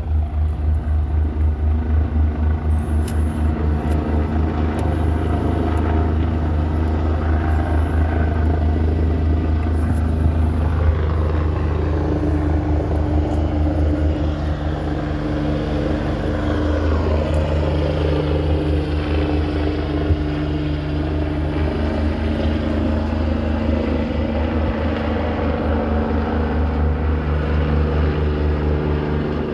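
2003 Cadillac DeVille's Northstar V8 engine running steadily at idle, with a fast rhythmic pulse that smooths out about halfway through.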